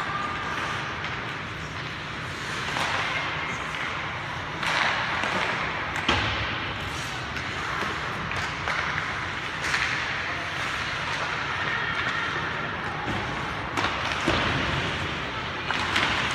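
Ice hockey play in an arena: skate blades scraping and hissing on the ice, broken by several sharp clacks and thuds of sticks and puck against the ice and boards.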